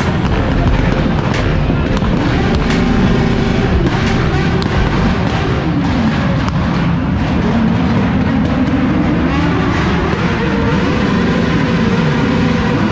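Several motorcycle engines revving up and down at once, with a few sharp exhaust pops in the first seconds.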